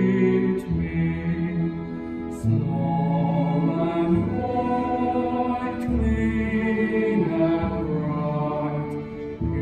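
Music: low voices chanting or singing slow, held chords, the notes shifting every second or two.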